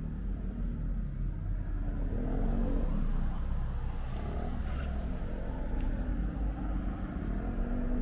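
City street traffic: car engines running with a steady low rumble.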